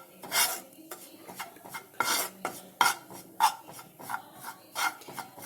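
A spoon scraping and stirring in a frying pan in irregular strokes, turning gram flour as it roasts in ghee over a low flame.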